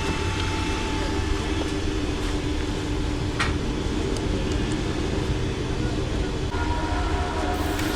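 Steady engine and traffic noise, a low rumble with an even hum, with one short click about three and a half seconds in.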